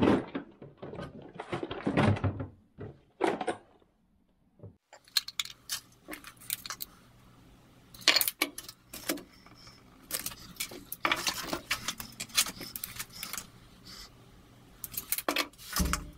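Clicks and rattles of plastic parts being handled: white plastic pipe fittings picked from a plastic organiser tray, then a length of plastic waste pipe and a tape measure handled on a bench. A faint steady low hum lies under the later part.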